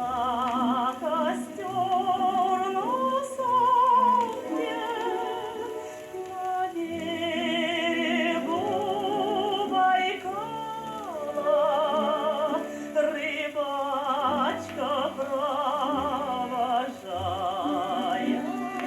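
Music from an old gramophone record of a Soviet popular song: a melody line with heavy vibrato over orchestral accompaniment, with no words sung.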